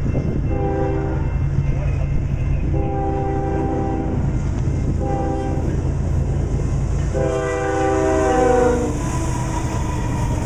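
A Norfolk Southern diesel locomotive sounds its multi-note air horn in four blasts, the second and the last held longest: the grade-crossing warning pattern. Under the horn runs the steady low rumble of the diesel engines, and near the end the rolling noise of the double-stack cars on the rails rises as they pass.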